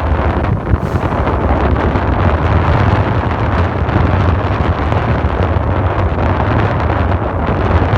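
Strong wind buffeting the microphone: a loud, steady low rumble with gusty noise over it.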